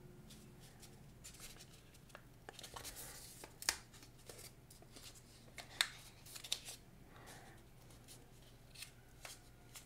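Faint rustling and crinkling of a paper wrap as it is opened and peeled off a new smartphone, with scattered light clicks from fingers and the phone's plastic body. Two sharper clicks, one a little past a third of the way through and one a little past halfway.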